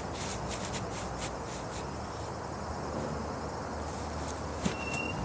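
Outdoor background with faint insect chirping over a steady hiss, including a run of quick high ticks in the first second or so, and a light click with a brief high chirp near the end.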